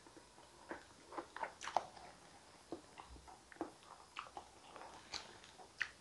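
Faint, close-up eating sounds: soft wet mouth clicks and smacks of a person chewing creamy sweet potato soup, scattered irregularly throughout.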